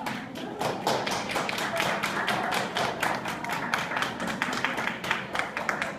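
A rapid, irregular patter of sharp taps and knocks, several a second, louder through the middle.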